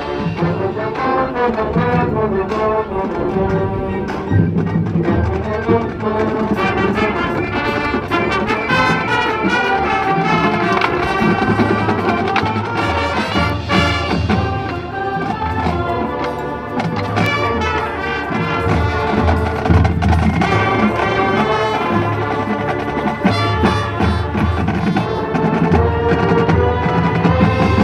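High school marching band playing: brass (trumpets and trombones) over percussion, with a steady beat.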